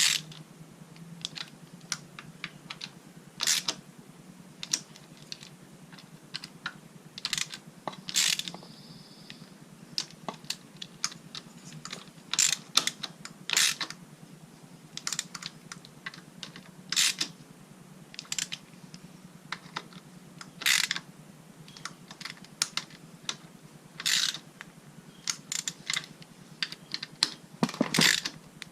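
Hand ratchet and socket clicking in short, irregular runs as bolts are tightened down on a motorcycle's stator cover.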